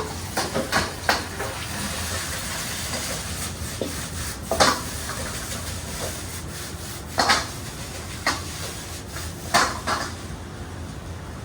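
Wok cooking at high heat: a steady sizzling hiss from the hot wok, broken by sharp metal clanks of a ladle or spatula striking the wok every couple of seconds. The sizzle thins out near the end.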